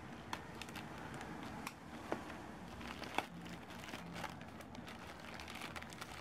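Plastic courier mailer bag crinkling and rustling as it is torn open by hand and a bubble-wrapped item is pulled out, with a few sharp clicks of the plastic.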